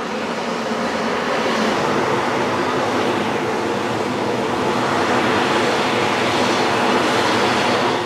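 Steady rushing hiss of steam pouring off a boiling hot-spring pond.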